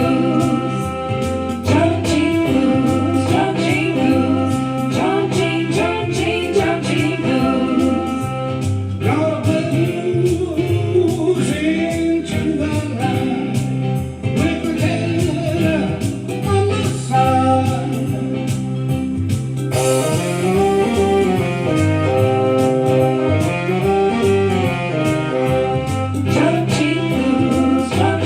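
Blues song: a singer over guitar and a steady, repeating bass line.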